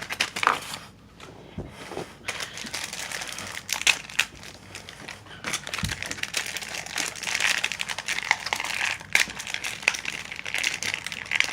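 Packaging crinkling and rustling as a small cardboard blind box is opened and its contents handled, with many sharp clicks and taps.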